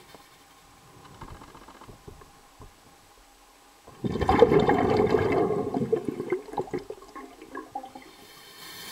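Muffled water sounds heard underwater: faint crackling, then a sudden gurgling rush of water about four seconds in that lasts a couple of seconds and fades into crackles.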